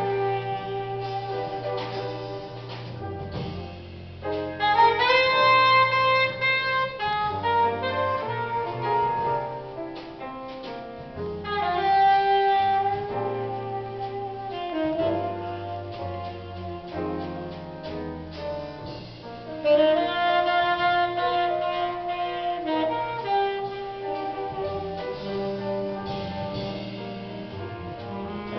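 Live jazz quartet: a saxophone leads with a melodic line of sustained notes over piano, double bass and drums.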